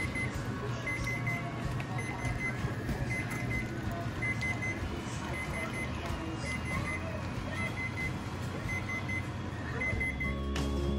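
Short, high electronic beeps in small clusters, repeating about every three-quarters of a second over a steady low hum: a kitchen oven's alert. The beeping stops shortly before the end.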